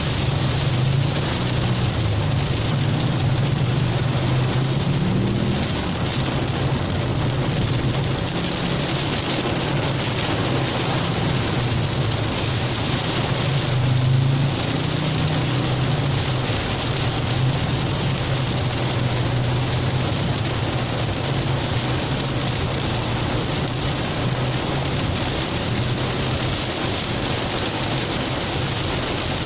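Heavy rain falling steadily, over the constant low hum of a vehicle driving in traffic.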